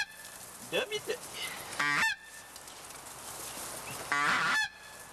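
Geese honking overhead: a few separate honks, a short one near the start, another about two seconds in, and a longer, loud one near the end.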